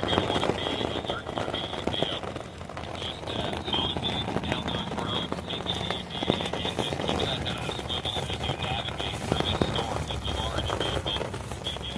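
Rain pattering steadily on a nylon tent's rainfly, with many small scattered drop ticks. A high, pulsing chirping runs on behind it.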